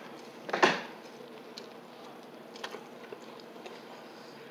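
A person biting into a steak burrito and chewing with the mouth closed: one short, sharp noise about half a second in, then a few faint, soft clicks of chewing.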